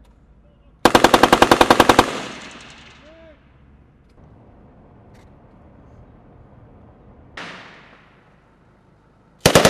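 M2 .50-calibre heavy machine gun firing a burst of about a dozen rounds, about ten a second, with a long echo rolling away after it. A single loud report comes a few seconds later, and another burst starts near the end.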